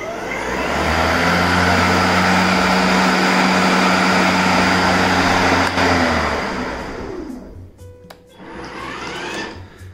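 EGO 56-volt brushless lawn mower's blade motor spinning up with a rising whine, running steadily for about five seconds, then winding down after it is switched off. A fainter rising-and-falling whir follows near the end.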